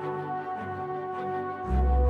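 Background music: held chords, with a loud deep bass line coming in near the end.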